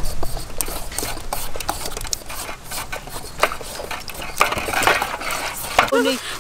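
Several metal hand peelers scraping and shaving the skin off green papayas, an irregular run of short scrapes and clicks.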